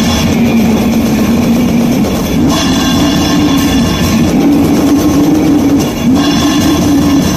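Raw, lo-fi goregrind played on heavily distorted guitar and drums, a dense wall of noise over a low riff that steps to a new pitch every couple of seconds.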